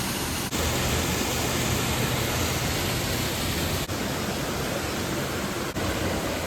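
Steady rush of flowing creek water, an even hiss, broken by three brief dropouts.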